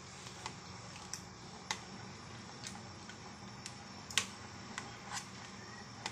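Metal ladle knocking and scraping against the side of an aluminium pot of soup: a scatter of light, separate clicks about a second apart, the loudest about two-thirds of the way through, over a steady low hiss.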